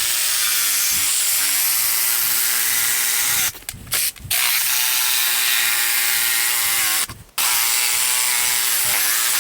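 Old Ryobi jigsaw with a Diablo Fast and Clean wood blade cutting half-inch plywood, running with a steady motor whine and sawing hiss. It stops briefly twice, about three and a half seconds in and again near seven seconds, then starts cutting again.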